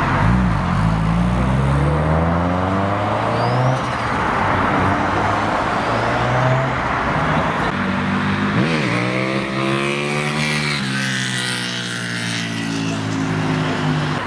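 Tuned car engines accelerating away: a quick rev blip, then the engine note climbing in pitch for about three seconds; about nine seconds in, another sharp blip and a second car pulling away, its note rising, holding, then falling as it goes.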